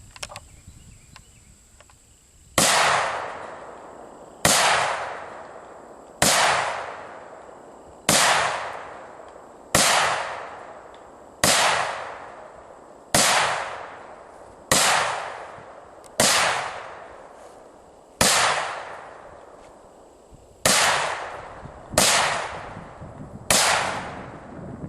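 ATI Omni Hybrid AR-15 rifle in 5.56 fired semi-automatic: thirteen shots, the first about two and a half seconds in, then one every one and a half to two and a half seconds, each followed by a long echoing tail.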